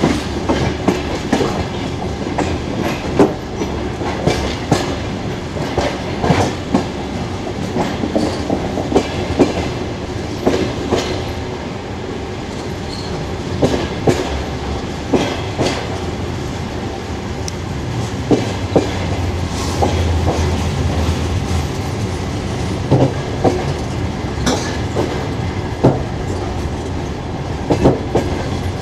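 Passenger coach rolling slowly, its wheels clacking irregularly over rail joints above a steady running rumble, heard from aboard the train. A low hum swells for a few seconds a little after halfway.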